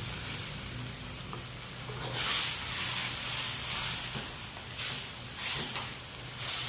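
Sauce sizzling in a hot wok while a metal ladle stirs it, scoops it up and pours it back. The sizzle surges several times, about two seconds in and twice more near the end, as the ladle works the sauce.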